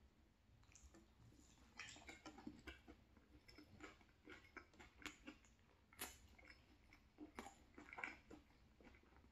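Faint close-up chewing of deep-fried chicken 65: irregular wet clicks and smacks of the mouth.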